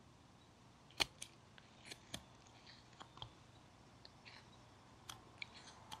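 Flexcut detail knife slicing into a basswood block, cuts and chips snapping off as a string of short, sharp clicks, the loudest about a second in.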